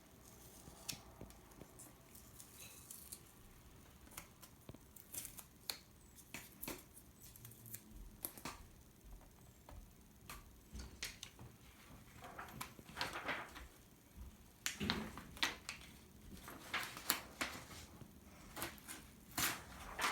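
Faint clicks and scraping from small plastic laptop parts being handled by hand, getting busier about halfway through.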